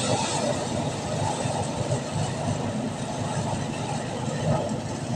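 An engine-driven machine running steadily, a constant noise with no breaks.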